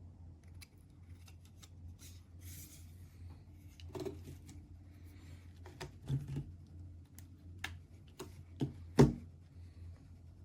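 Objects being handled by hand, with scattered clicks and rubbing and a louder knock about nine seconds in, over a steady low hum.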